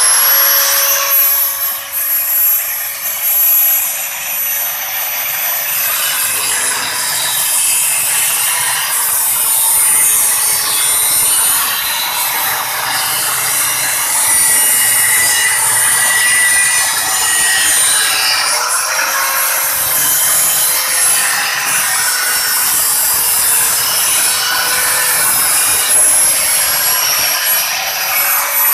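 Electric angle grinder with a cutting disc slicing through rusty steel pipe: a steady high motor whine over a harsh grinding hiss, the pitch sagging slightly at times as the disc bites into the metal.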